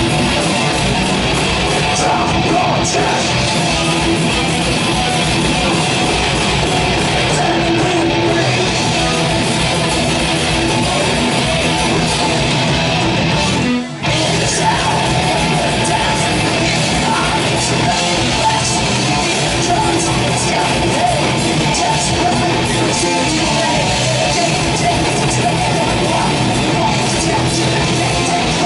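Thrash metal band playing live: distorted electric guitars, bass and drums in a dense, loud wall of sound. The band cuts out for a split second about halfway through, then comes straight back in.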